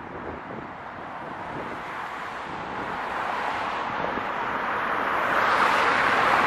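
Jet engines of a Boeing 777-200ER (Rolls-Royce Trent 892 turbofans) at takeoff thrust, a rushing noise growing steadily louder as the aircraft comes closer on its takeoff roll.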